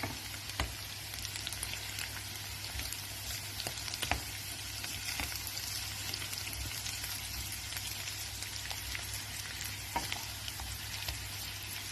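Sliced potatoes frying in melted butter in a nonstick pan, a steady sizzle. A few light clicks come through it, about half a second, four seconds and ten seconds in.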